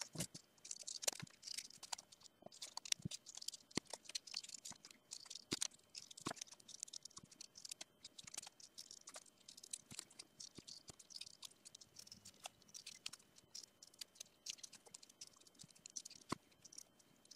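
Scissors snipping through a folded paper index card: a long run of faint, short snips and clicks, several a second, cut after cut.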